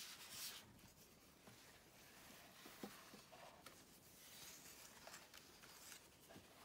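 Faint rustling and sliding of paper as a card pop-up lantern is opened and folded flat by hand, its paper strips flexing and rubbing against each other, with a light tap a little before the middle.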